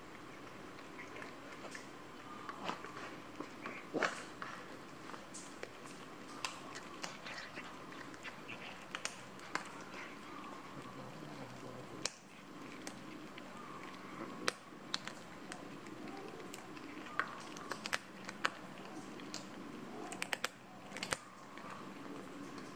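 Cats chewing and crunching fish bones and scraps, an irregular run of sharp crunches and clicks.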